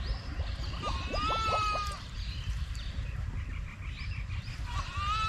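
A goat bleating off-camera: one long, steady, high-pitched call about a second in, and another beginning near the end.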